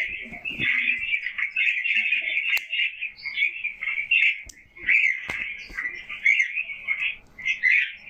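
Many small cage birds chattering at once, a constant dense twittering, with a few sharp knocks.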